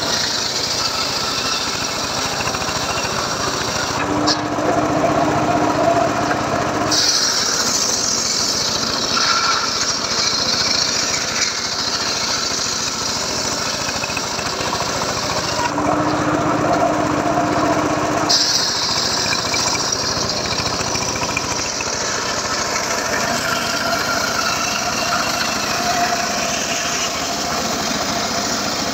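Homemade bench circular saw ripping lengthwise through an old teak log, the blade cutting continuously under load. Its sound shifts several times as the cut goes on, with a low steady hum that comes in twice.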